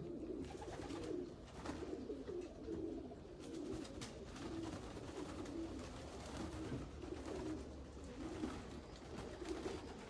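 Racing pigeons cooing in their lofts: many low coos overlapping in a steady run with no break.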